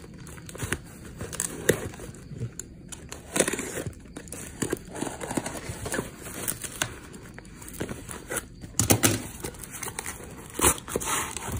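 Parcel wrapping torn open and crumpled by hand: irregular crinkling and tearing with sharp crackles.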